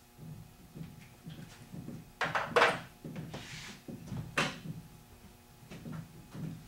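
A few knocks and clattering sounds in a small room, the loudest cluster about two and a half seconds in and another sharp knock a little after four seconds.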